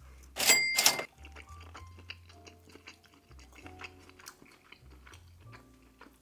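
Close-miked chewing of a Cajun-spiced mussel: faint wet clicks and crunches, with a brief loud noise about half a second in. Soft background music with a low bass line plays under it.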